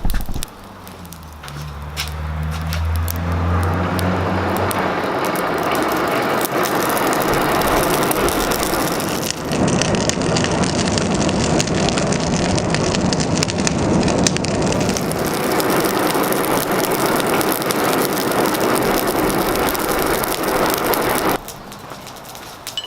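Hand-cranked rivet forge blower spinning up and running with a steady whirr. It stops about 21 seconds in.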